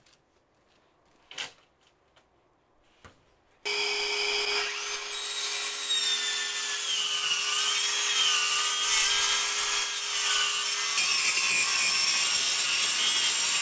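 A couple of light knocks, then about four seconds in a track saw starts and runs through a sheet of plywood, a loud steady whine whose pitch wavers as it cuts, with its dust extractor running along with it.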